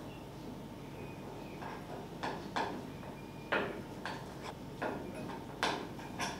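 Metal spoon clinking and scraping against a glass mixing bowl while stirring a thick masala paste, a string of irregular clinks starting about a second and a half in.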